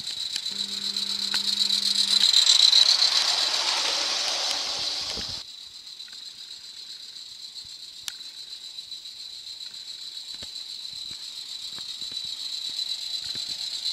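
Gauge 1 live-steam model tank locomotive (Aster KPEV T3) running with its goods wagons, a hissing, rattling sound that swells as it passes close. It cuts off suddenly about five seconds in. After that it is fainter, with light clicks from the wheels on the track.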